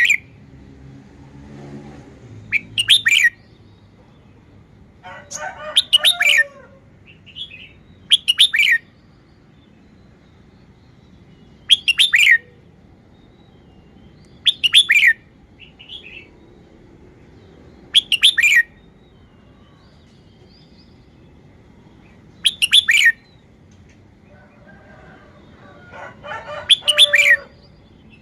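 Red-whiskered bulbul singing short, loud whistled song phrases, about eight of them, one every three seconds or so.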